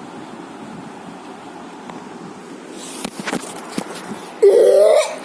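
A steady hiss with a few clicks and knocks, then near the end a loud, short, rising squeal-like cry from a person's voice.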